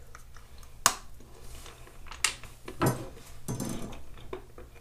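A few light clicks and knocks of a chef's knife and pieces of dark chocolate being handled on a wooden cutting board. The sharpest click comes about a second in, and softer knocks follow around three seconds.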